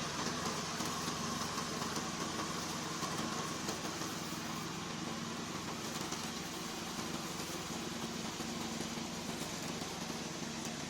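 Remote-control slope mower's engine running steadily at constant speed.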